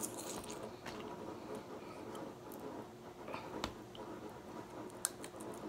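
Quiet eating sounds from snow crab legs being picked apart by hand and chewed: soft chewing with a few small sharp clicks of shell, over a faint steady hum.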